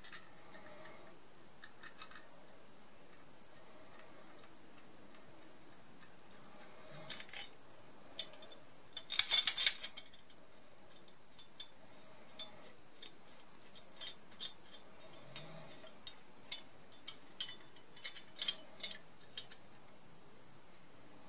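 Parts of a small metal saw vise being handled and fitted together, giving light metal clicks and clinks. About nine seconds in comes a quick run of rattling clinks, the loudest part, then scattered single clicks.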